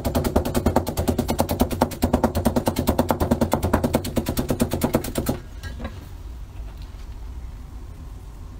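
Kitchen knife chopping fast and evenly against a white plastic cutting board, about eight strokes a second, as a potato is sliced thin. The chopping stops about five seconds in.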